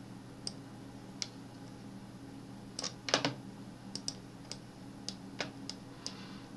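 Scattered sharp clicks of a computer mouse and keyboard, about a dozen, with a quick loud cluster about three seconds in, over a faint steady low hum.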